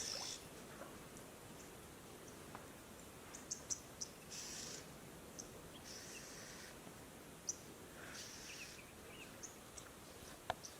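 Quiet bush ambience with scattered short, high chirps and ticks from insects and birds. There are three brief hissing bursts about four, six and eight seconds in, and a sharp click near the end.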